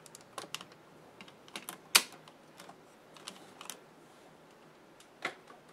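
Scattered light clicks and taps of hard plastic toy parts being handled, with one sharper click about two seconds in and another near the end.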